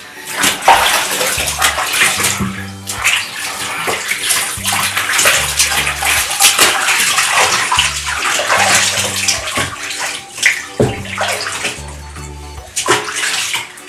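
Bathwater splashing and sloshing in a filled bathtub as hands wash a Shih Tzu, with background music underneath.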